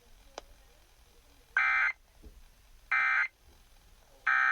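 Emergency Alert System end-of-message data bursts: three short, identical bursts of harsh, buzzing digital tones, about a second and a half apart. They mark the end of the broadcast alert.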